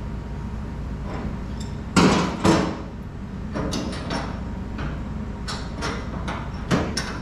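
Hard knocks and clanks of tools and fittings against a kitchen sink and faucet. Two loud knocks come about two seconds in, followed by a run of lighter taps and clicks and one sharper knock near the end.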